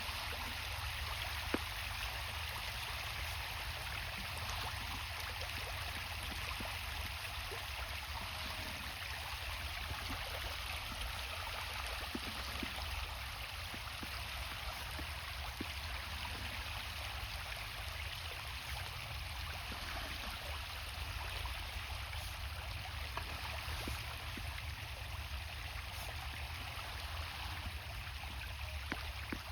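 Running water with a steady rush and trickle.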